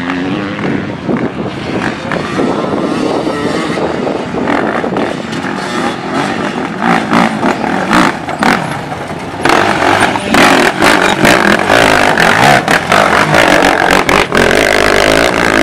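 Sport quad (ATV) engine revving hard as it climbs over rocky ground, growing louder about halfway through as it comes close.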